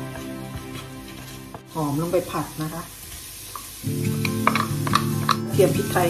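Chopped shiitake mushrooms and aromatics sizzling in hot oil in a nonstick frying pan, stirred with a wooden spatula that taps and scrapes the pan. The mushrooms are tipped in about four seconds in, and the clicks come faster after that. Background music plays over it.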